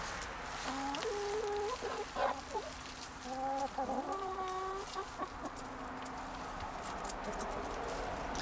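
A flock of hens clucking as they forage, with several drawn-out pitched calls in the first half. Faint ticks and rustles follow later.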